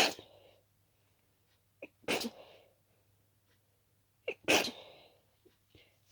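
A person sneezing three times, about two seconds apart, each sneeze just after a quick sharp intake of breath. It is a rapid allergic sneezing fit from an itchy nose, set off by dust.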